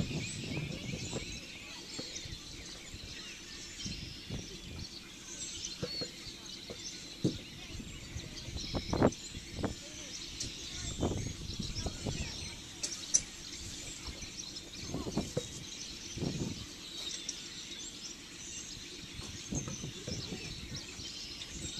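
Background birdsong: many small birds chirping steadily, with a few short knocks scattered through.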